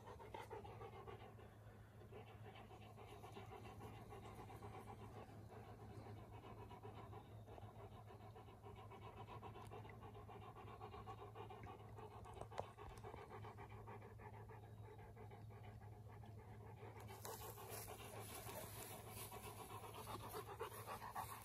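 A Cane Corso panting faintly and steadily.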